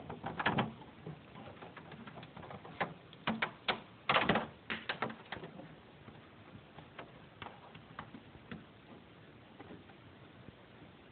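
Clicks and knocks of plastic parts being handled as a Bemis Waterwick humidifier is put together and its power cord plugged in. The clicks come in a dense cluster in the first five seconds, loudest about four seconds in, then thin out to sparse light taps.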